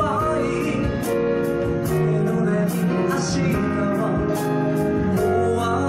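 Live band music: a male voice singing over keyboard, electric guitar, bass and percussion, with regular cymbal strikes.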